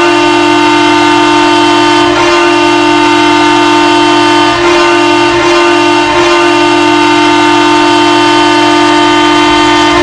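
Ice hockey arena goal horn blasting one long, loud, steady low tone, held for about ten seconds.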